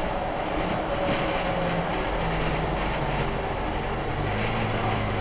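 Steady running noise inside the upper deck of a Scania UNVI Urbis 2.5 DD CNG double-decker bus under way: the low engine hum, its pitch changing a few times, under road and body noise.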